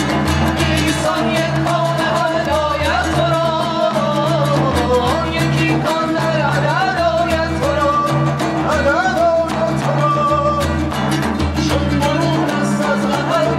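Music: a wavering melody over sustained low notes and a steady percussive rhythm.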